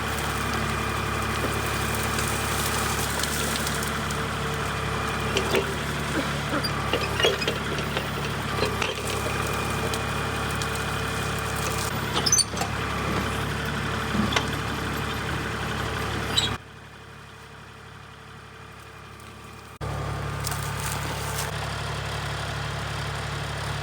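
Kubota compact tractor's diesel engine running steadily while it works a backhoe, with scattered clanks and scrapes of the bucket digging in rocky ground. About 17 seconds in the sound drops much quieter for about three seconds, then the engine returns.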